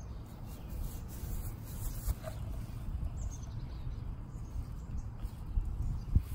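Outdoor ambience: a few faint bird chirps over a steady low rumble on the microphone, with one brief thump near the end.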